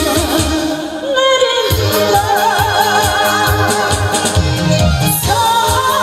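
A woman singing a Korean trot song live into a microphone over backing music with a steady beat. About two seconds in she holds a long note with wide vibrato, then starts a new phrase near the end.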